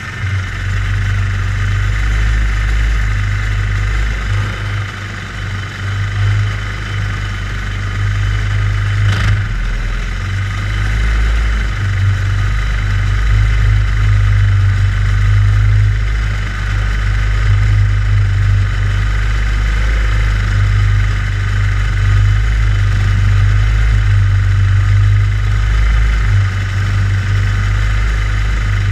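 Go-kart engines idling steadily, the nearest one the camera kart's own, with a single click about nine seconds in.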